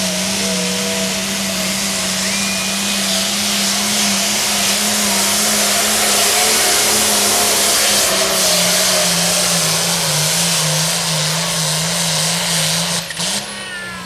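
International Harvester 1206 pro-farm pulling tractor's diesel engine running flat out under load as it drags the weight sled. About ten seconds in its pitch sags and wavers, then it rises briefly and falls away near the end as the pull finishes.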